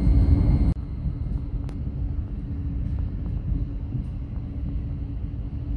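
Passenger train running noise heard from inside the carriage: a steady low rumble with a faint hum. It drops abruptly in level under a second in, then holds steady.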